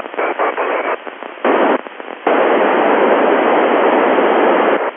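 FM radio static from the ISS voice-repeater downlink on the Icom IC-9700 transceiver. It is choppy and broken for about two seconds, then a steady loud hiss that cuts off abruptly near the end.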